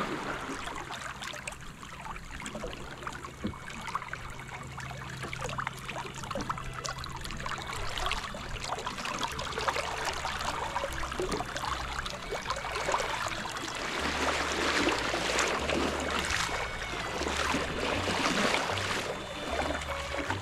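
Water rushing and splashing along the wooden hull of a small sailing canoe yawl as it runs downwind at nearly 5 knots, the bow wave slapping irregularly. The rush grows louder in the second half.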